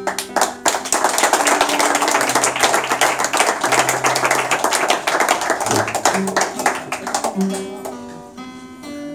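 Acoustic guitar strummed and picked, with bass notes under the chords, while a group claps for several seconds from about a second in, the clapping louder than the guitar.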